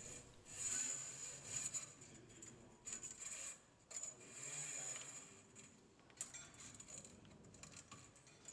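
Faint scraping and rubbing of a wire rope being drawn through the diamonds of a stainless steel cable mesh, with a few light metallic clicks.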